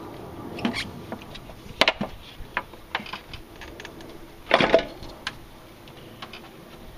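Light knocks and clicks as a Jeep 4.0 valve cover is handled and set down onto the cylinder head, its breather hose pushed aside, with a louder short clatter about four and a half seconds in.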